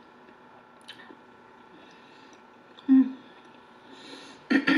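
A woman chewing food with her mouth closed, then humming briefly about three seconds in and again near the end, the second hum louder and falling in pitch.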